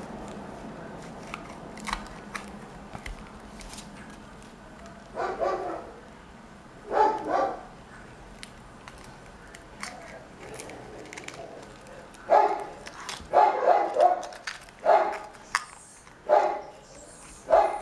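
A dog barking: two barks a few seconds apart, then a quicker run of about six barks in the last six seconds.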